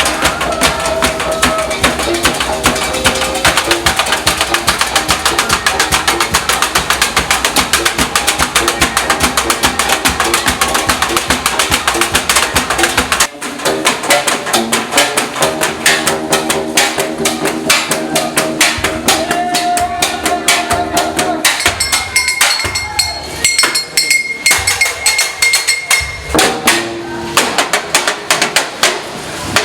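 Percussion-led music with fast, even strikes over held notes. About halfway through it cuts off abruptly and goes on sparser, with less bass and longer held notes.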